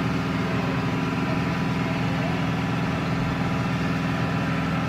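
A car engine idling with a steady, even hum.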